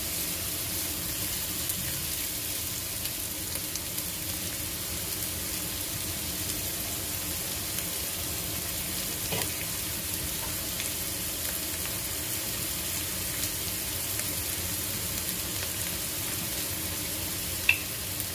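Diced onion sizzling in olive oil in a frying pan: a steady frying hiss with fine crackling. A single sharp click near the end.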